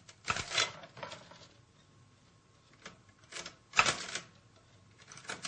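Chinese typewriter being operated: about half a dozen irregularly spaced mechanical clacks. Each comes as a character is picked from the type tray and stamped onto the paper, and the loudest falls about four seconds in.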